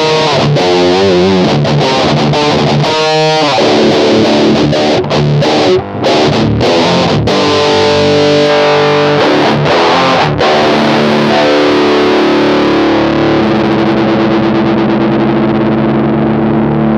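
Electric guitar played through an Electro-Harmonix Nano Metal Muff pocket distortion pedal with its scoop toggle on HI: heavily distorted high-gain riffing with a couple of short breaks. About ten seconds in, a chord is struck and left to ring out.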